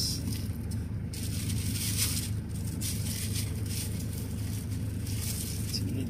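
Plastic bags crinkling and rustling as they are handled in a styrofoam box, over the steady low hum of a car's cabin.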